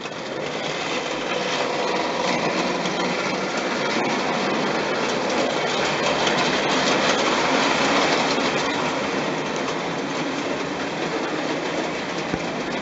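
Märklin gauge 1 HR Pacific tinplate model locomotive and its coaches running on tinplate track: a dense, steady metallic rattle and rumble of wheels and mechanism. It comes in sharply at the start, is loudest about halfway through as the train passes close by, then eases a little.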